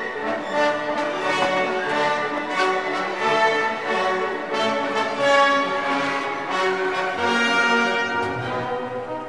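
Orchestral background music, strings and brass holding long notes.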